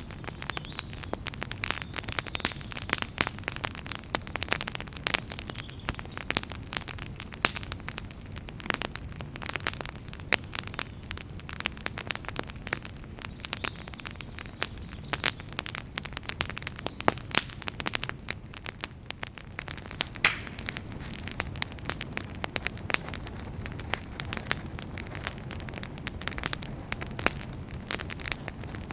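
Wood fire crackling: dense, irregular sharp pops and snaps over a steady low rumble of the burning logs.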